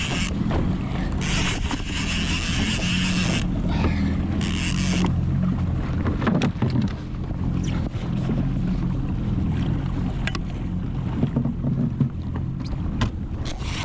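Jet ski engine idling with a steady low hum, with wind and choppy water around it. Gusts of wind noise come at about one and four seconds in, and scattered clicks and knocks from the rod and reel follow during the fight with a large fish.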